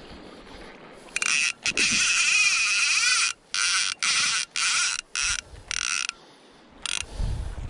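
Salmon fly reel's click-and-pawl drag ratcheting in a string of short spurts, stopping and starting, as line is worked with a fish on. A low thump near the end.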